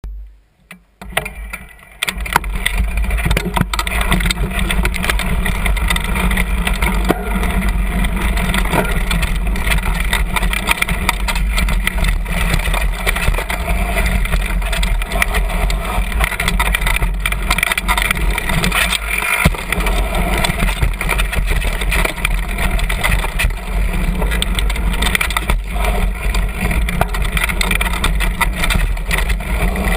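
Downhill mountain bike riding fast over a dirt trail, heard from close by the front wheel: a continuous low rumble of tyre and rough ground with frequent rattles and knocks from the bike over bumps, starting about two seconds in.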